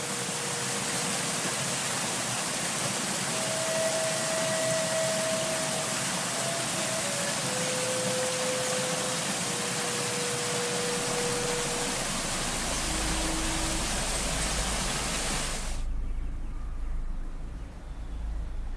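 Steady rushing of a waterfall, cutting off suddenly near the end, after which only a low rumble remains.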